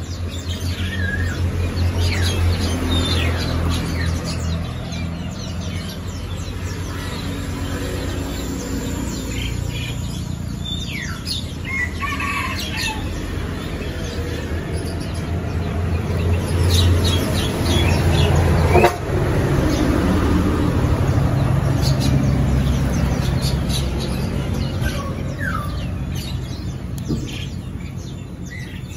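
Small birds chirping repeatedly, short quick calls over a steady low rumble, with one sharp knock about two-thirds of the way through.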